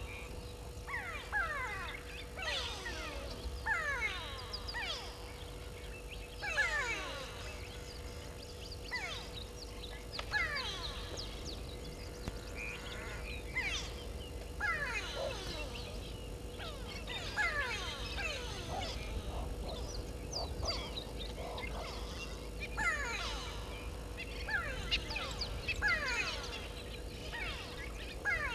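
Birds calling in the bush: repeated short whistled notes that slide down in pitch, coming in clusters every second or two, over a steady faint electrical hum and a low rumble.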